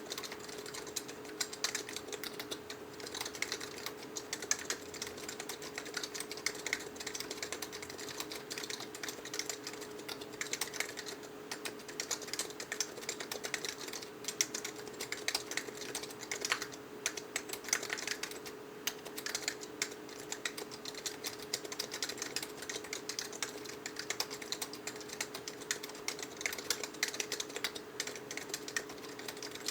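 Continuous typing on a mechanical keyboard with Matias quiet non-click (Alps-clone) switches: a rapid, unbroken stream of keystrokes, with a faint steady hum underneath.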